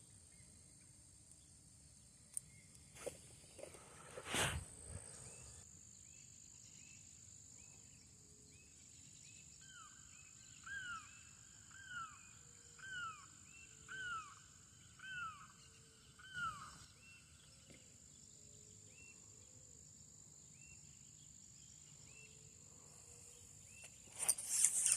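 Quiet outdoor nature sound: a steady high-pitched insect drone, and in the middle a bird gives six falling calls, about one a second. A brief sharp knock comes about four seconds in, and a few faint clicks just before it.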